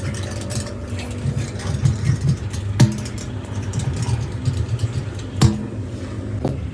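A vehicle engine running steadily, with light rattling and two sharp knocks, the first about three seconds in and the second near the end.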